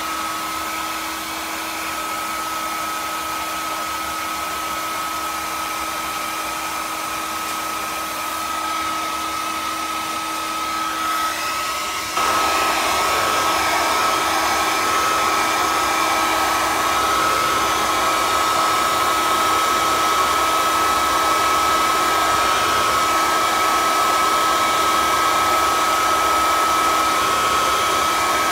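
A small electric motor running steadily: a high whine over a rushing hiss, growing louder and fuller about twelve seconds in.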